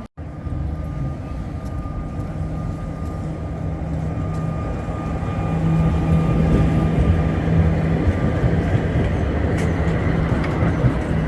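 Sóller electric tram running, with a steady motor hum over the rumble and rattle of its wheels on the rails, growing louder about halfway through.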